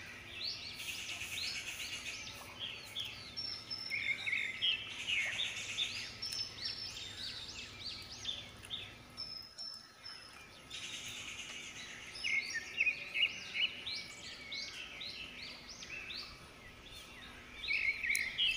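Small birds chirping, with many short high chirps overlapping throughout and a brief lull about halfway.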